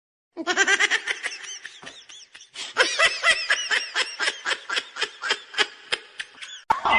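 A person laughing hard in a long run of quick, repeated bursts that breaks off shortly before the end.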